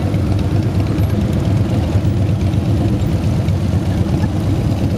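Many motorcycle engines running together as a column of bikes rolls past at low speed, a steady low rumble with no single engine standing out.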